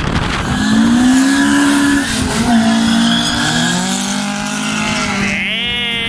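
A Honda CRX and a small pickup launching off a drag strip start line, engines revving hard as they pull away, with tyre squeal from wheelspin. The CRX botches its launch. Near the end comes a short, wavering high-pitched sound.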